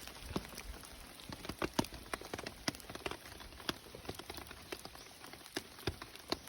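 Rain falling: a steady hiss of rain with irregular sharp drips striking a hard surface.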